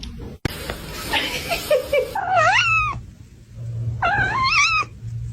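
A cat meowing twice in long, wavering calls: the first about two seconds in, the second about four seconds in.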